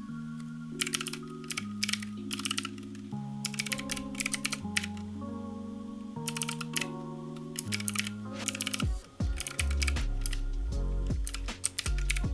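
Mechanical keyboard with clicky Gateron Blue switches being typed on in quick runs of sharp clicks, starting about a second in. Background music with sustained chords plays underneath, and a heavier bass line comes in near the end.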